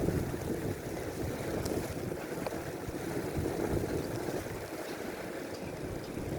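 Wind buffeting the microphone of a camera riding on a moving bicycle in a snowstorm: a steady low rush, with a few faint ticks.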